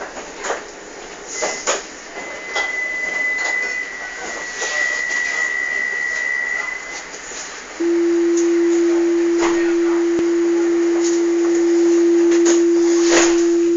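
Tram's warning tone at a stop: a thin high steady tone for about five seconds, then, about eight seconds in, a loud steady low tone held for about six seconds, over scattered clicks and knocks inside the car.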